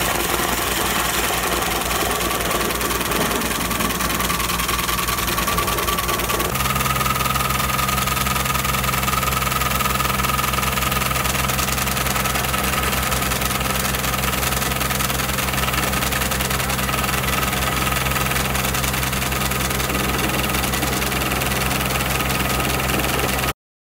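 Roxar FD15 drill boring a 76 mm hole in mixed ground and hard rock, running steadily with a fine, even rattle. Its pitch shifts about six and a half seconds in, and it cuts off suddenly near the end.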